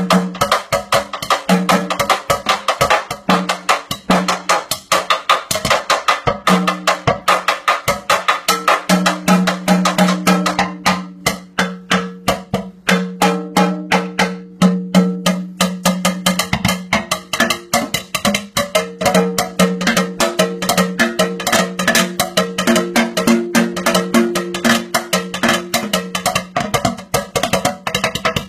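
A kitchen sink played as a drum: fast, steady rhythmic hits on the metal basin, several strokes a second, with a low ringing tone sustained beneath them.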